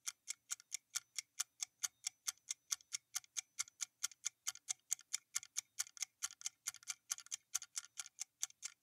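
Quiet clock-ticking sound effect of a quiz answer timer: even, short ticks, about four a second, marking the time allowed to answer.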